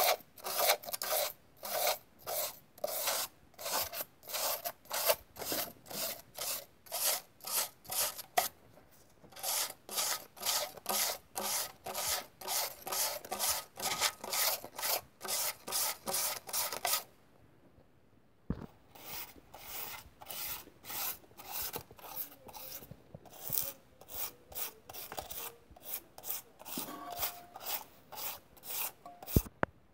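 Folded sandpaper rubbed by hand back and forth over a Honda engine block's deck surface, about two strokes a second, with a short pause and then a break of over a second about halfway, after which the strokes come fainter. It is a light hand-dressing of the deck to lift carbon and old gasket residue without machining it.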